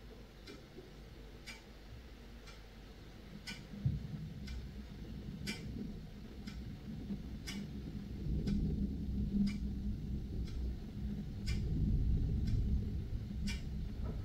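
A clock ticking steadily about once a second, over a low rumble of thunder that begins with a thump about four seconds in and grows louder toward the end.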